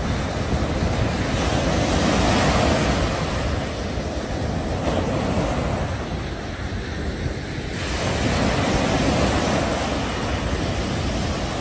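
Small waves breaking and washing up onto a sandy beach: a steady rush of surf that swells twice, about two seconds in and again around eight seconds in, with wind rumbling on the microphone.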